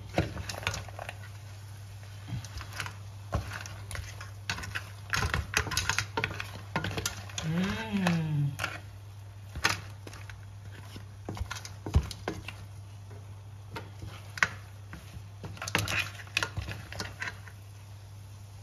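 Irregular light clicks and taps of a cooking utensil against a pot of simmering crab noodles, over a steady low hum. A short hum-like vocal sound rises and falls about eight seconds in.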